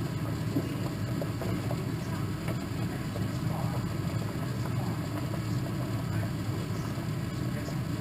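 A steady low mechanical hum with a few faint light taps.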